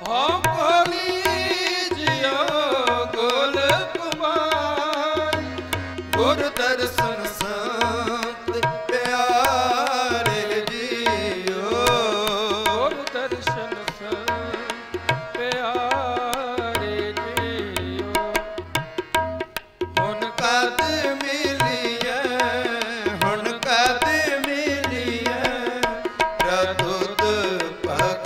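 Sikh shabad kirtan: a man singing a gurbani hymn in a gliding, ornamented melody over harmonium, with tabla keeping a steady rhythm.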